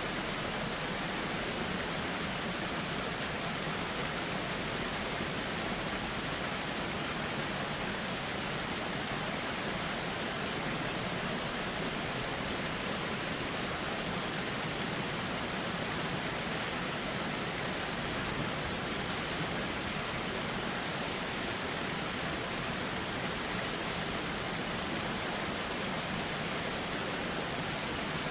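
Steady, even rushing of a flowing river, its water running without a break.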